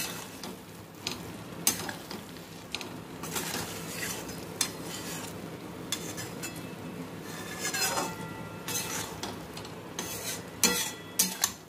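A metal spatula stirring and scraping a thick rice mixture in a metal kadai, with many short clinks and knocks against the pan and a cluster of sharper knocks near the end, over a light sizzle from the pan on the heat.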